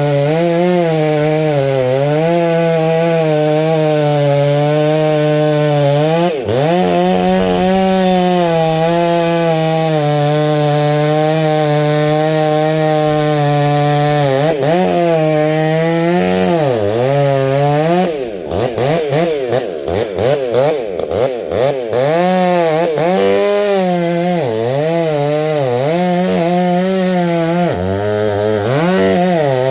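Gas chainsaw running under load while cutting pine, its engine note wavering as the bar bites. Between about 18 and 22 seconds in, the engine revs rapidly up and down.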